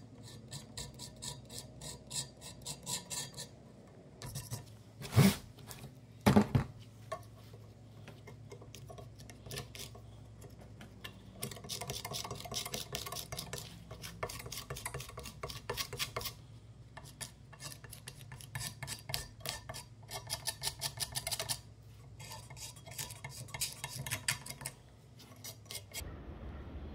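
A metal scraper scraping stripper-softened paint off a cast-iron hand plane body in quick strokes, several a second, in runs of a few seconds with short pauses. Two sharp knocks sound about five and six seconds in.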